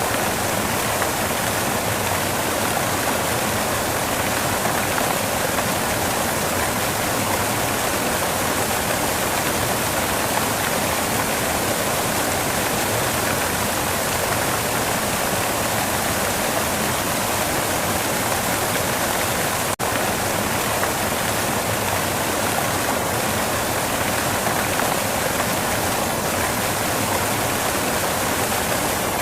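Steady white noise: an even, unbroken rushing hiss like falling water, with a momentary dropout about twenty seconds in.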